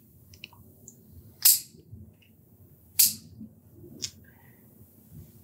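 Plier-style dog nail clippers snipping through a German shorthaired pointer's toenails: two sharp snaps about a second and a half apart, then a fainter one about a second later.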